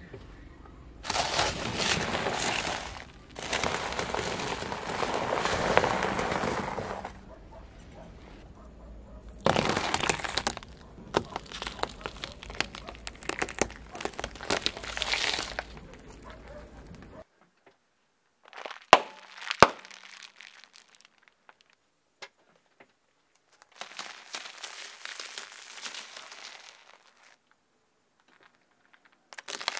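A car tyre rolling over and crushing a series of objects, heard as several stretches of dense crunching and crackling with quiet gaps between. Two sharp cracks stand out about 19 seconds in.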